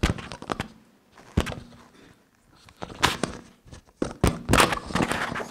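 Several bursts of knocking and rustling, the loudest a cluster of sharp knocks from about four seconds in.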